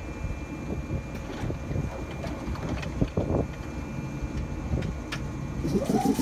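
Passenger doors of a standing JR Kyushu 415 series electric train sliding shut, with knocks, the loudest about three seconds in, over a steady low rumble. Near the end a rising whine starts up from the train.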